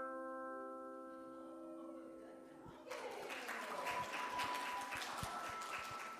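Hand chimes rung by a congregation ring together as a chord and fade away over the first two seconds or so. About three seconds in, clapping breaks out and goes on for about three seconds, with a single chime tone ringing through it.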